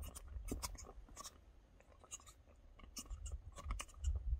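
Wind rumbling on the microphone, with scattered light clicks and rustles coming at irregular moments.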